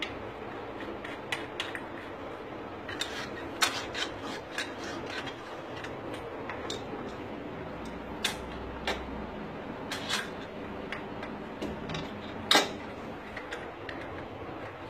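Scattered sharp metallic clicks and taps as chrome plumbing fittings are handled and screwed onto wall water points, with one louder click near the end.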